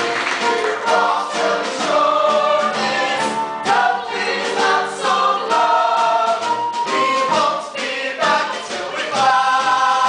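A stage-musical ensemble singing together in chorus, holding long notes that change pitch every second or so.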